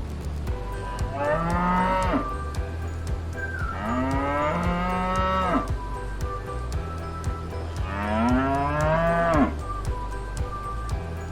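Cow mooing three times, each a long call that rises in pitch and drops off sharply at its end, over background music.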